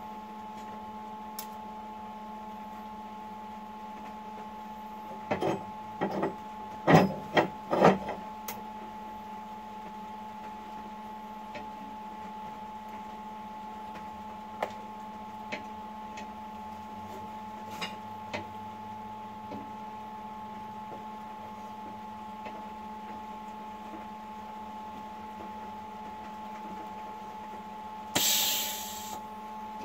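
Steady electrical hum, with a cluster of sharp knocks about five to eight seconds in and a short hiss near the end.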